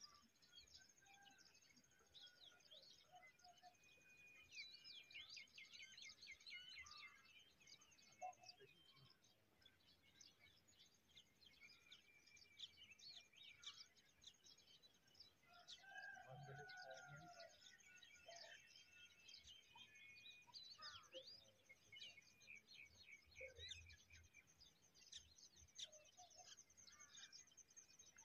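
Faint birdsong: many small birds chirping and twittering, with quick trills and a few short held whistles.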